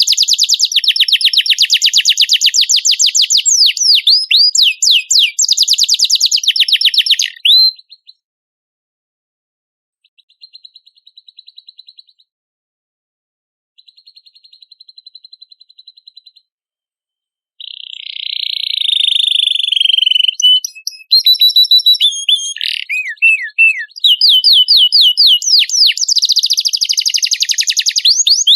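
Domestic canary singing: long runs of rapid, repeated sweeping notes and trills, high-pitched and loud. The song breaks off after about seven seconds, two faint trilled phrases follow in the pause, and loud singing resumes about two-thirds of the way in.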